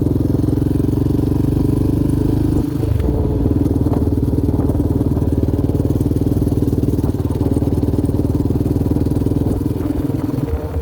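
Yamaha Raptor 700R quad's single-cylinder four-stroke engine running under way as it is ridden. The engine note dips briefly about three seconds in and then picks back up, as with a throttle change or gear shift.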